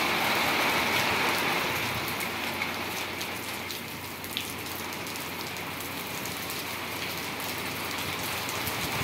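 Fairly heavy rain falling on a tiled courtyard: a dense, even patter of drops with single splashes ticking through it, easing a little after the first few seconds.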